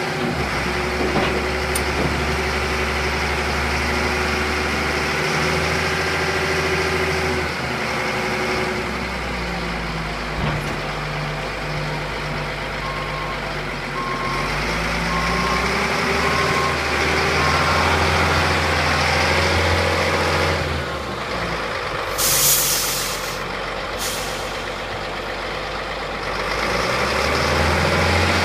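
Caterpillar D25D articulated dump truck's diesel engine running, its pitch rising and falling several times. Midway a backup alarm beeps about once a second, and near the end there are two sharp bursts of air hiss.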